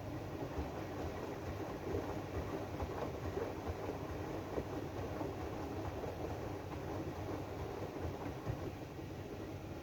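AEG DualSense washing machine running its drum-clean programme: a steady rumble from the turning drum, with many small, irregular knocks and rattles.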